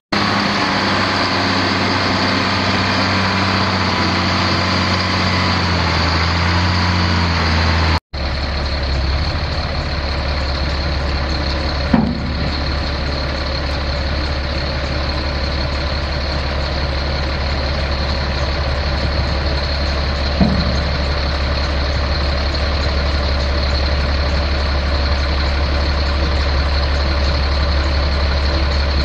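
Caterpillar 3126 7.2-litre inline-six turbo diesel of a dump truck idling steadily. The sound cuts off abruptly about eight seconds in and resumes as a steadier low drone, with two brief clicks later on.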